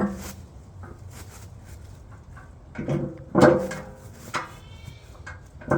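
Knocks, clunks and scraping as a heavy tractor box blade is lifted by hand, with a loud cluster of clunks and short vocal effort sounds about three seconds in.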